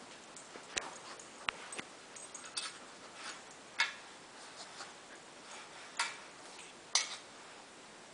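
A metal muffin tin clinking and tapping as a dog noses and paws at the tennis balls in its cups. There are irregular sharp clicks, the loudest about four, six and seven seconds in.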